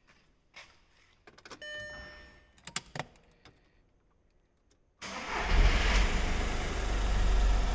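A few key clicks and a short beep, then about five seconds in the Skoda Fabia's 1.4 PD TDI three-cylinder diesel cranks, catches and settles into a steady idle.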